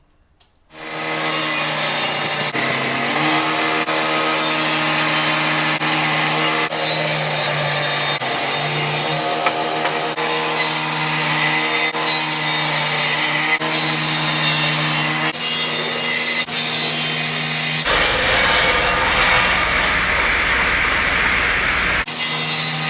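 Power saw running and cutting through maple boards, a steady motor hum under the noise of the blade in the wood. About eighteen seconds in the sound changes abruptly to a different cut for a few seconds, then the first sound returns.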